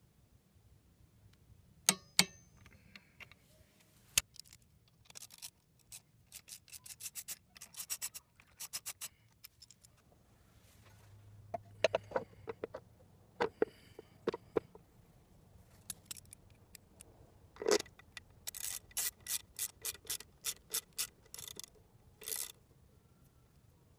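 Hand-tool work on a Honda Elite 50 scooter's CVT. A sharp double click about two seconds in, as the torque wrench breaks over at its set 60 N·m on the variator nut. Then knocks as the CVT cover is fitted, and several runs of fast ratchet clicking as its bolts are driven in, the longest near the end.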